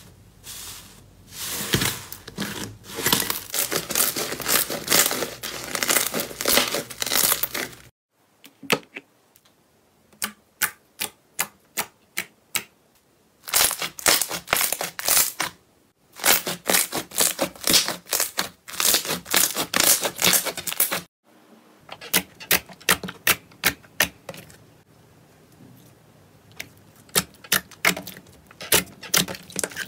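Slime pressed, squeezed and pulled by hand, giving quick clicks and pops. They come in dense runs in the first quarter and again in the middle, and are sparser in between and near the end.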